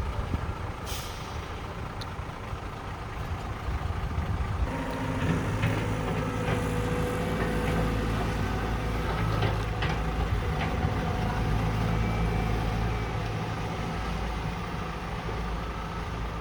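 Excavator's diesel engine running, growing louder and busier about five seconds in as it takes load, with a few sharp metallic clanks.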